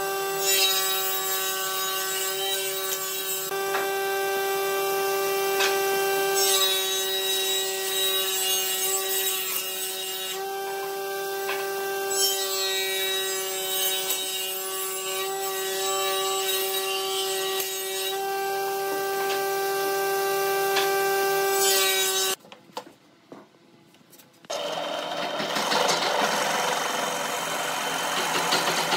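Scratching and rubbing of a pencil, steel ruler and square on a thick wooden disc being marked out, over a steady tone from a running machine. Near the end, after a short silence, a drill press bores into the edge of the disc with a dense, even rasp.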